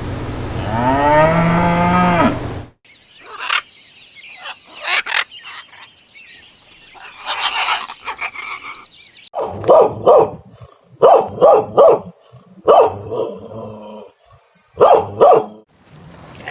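A cow mooing in one long call, which cuts off about three seconds in. After faint scattered chirps and clicks, a dog barks in a series of short, loud barks in clusters through the second half.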